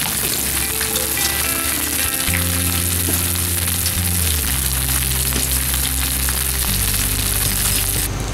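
Food frying in hot oil, a steady dense sizzle, with quiet background music underneath.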